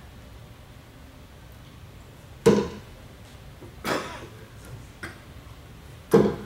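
Steel-tip darts hitting a bristle dartboard. There is a sharp thud about two and a half seconds in, a softer one over a second later, and another sharp thud near the end.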